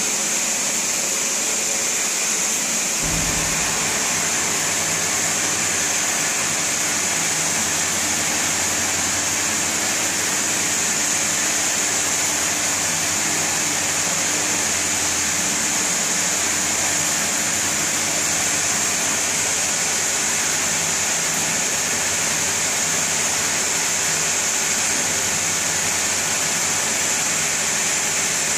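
Steady machine noise: a loud, even hiss, with a low hum joining about three seconds in.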